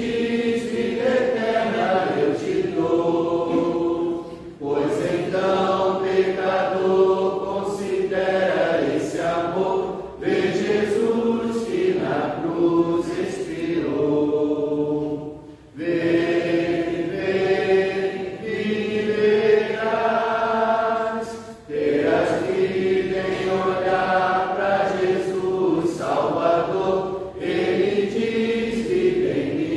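A congregation singing a hymn together in long phrases, with short breaks between lines.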